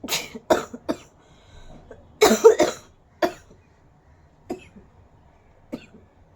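A woman coughing in short bursts: a quick run of three, a louder cluster about two seconds in, then a few single, fainter coughs.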